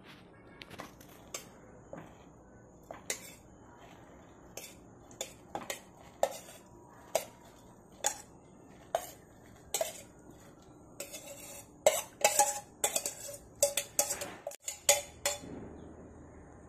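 Steel spoon clinking and scraping against a stainless steel bowl and saucepan as washed rice flakes are pushed out into boiled milk. Single ringing clinks come about once a second at first, then a quick run of clinks and scrapes near the end.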